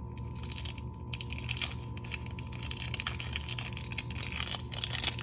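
Slime being squished and stretched between the fingers, giving dense, irregular clicks and crackles.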